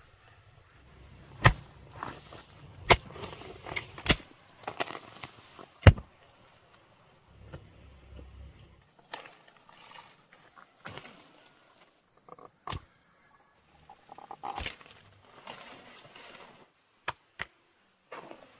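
A series of sharp knocks and thuds at irregular intervals, several strong ones in the first six seconds and sparser, lighter ones after.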